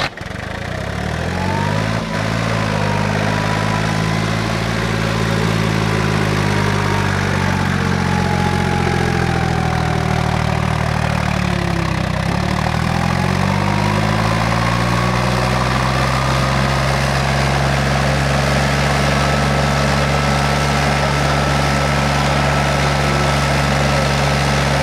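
Small tractor engine revving up and down as it works through deep mud, then running steadily at one speed.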